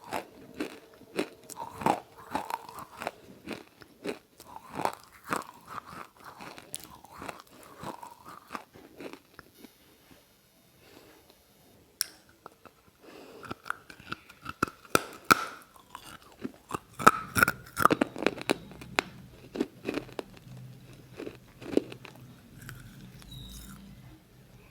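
Close-miked crunching and chewing: a stream of crisp, irregular crunches and bites, with a quieter stretch near the middle.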